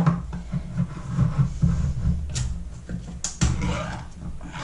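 Gloved hands handling a metal tin of peaches in syrup at the counter: a few sharp clicks and knocks over low rumbling handling noise.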